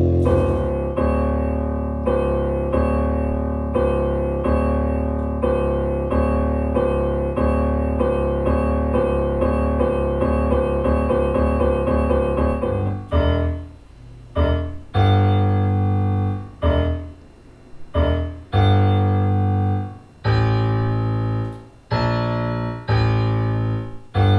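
Electronic piano-like notes from a LaserCube LaserHarp, each note set off as a hand breaks one of its laser beams. For the first half the notes come in an even run of about two a second, overlapping. About halfway through they change to separate, more spaced notes, about one a second, each ringing and then cut off before the next.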